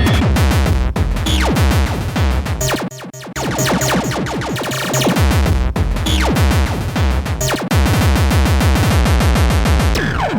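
Dense electronic breakcore track with rapid drum-machine hits and repeated falling synth sweeps; the beat briefly drops out and thins about three seconds in, then comes back.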